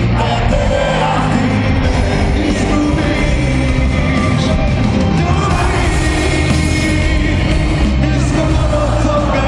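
Loud amplified live concert music with singing, heard from high in the stands of a stadium arena and recorded on a phone.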